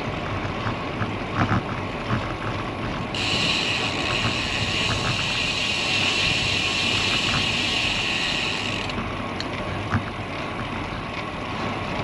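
Wind on the microphone and the rolling noise of a road bike on a concrete road, with scattered light clicks. From about three seconds in to about nine seconds in, a steady high hiss joins and then cuts off.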